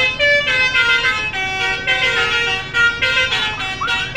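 Bus telolet horn (Basuri multi-tone air horn) playing a tune: several horn tones sounding together, holding each note and stepping to new notes every half second or so.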